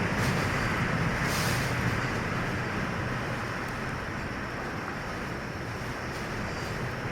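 Typhoon wind blowing hard: a dense rushing noise, strongest at the start and easing off over a few seconds.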